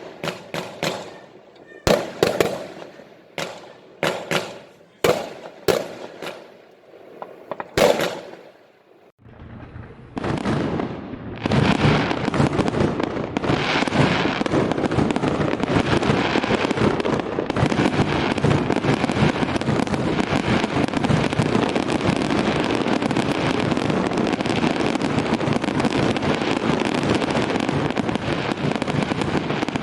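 Fireworks going off: a run of separate sharp bangs, roughly one a second. About ten seconds in they give way to a long, unbroken crackling barrage of firecrackers.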